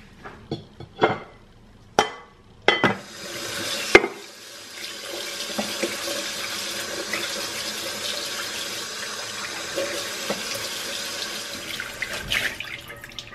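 Kitchen tap running into a sink and splashing onto a glass food container as it is rinsed. Before the water starts there are several sharp knocks and clatter of dishes being handled, the loudest about four seconds in, and a few more clinks near the end.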